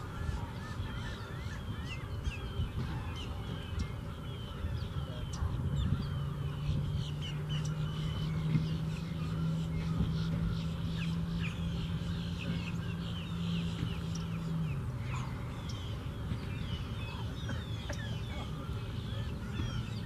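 Many birds chirping and calling in short quick notes over a steady low rumble. A steady low hum comes in about five seconds in, then drops in pitch and fades a little past the middle.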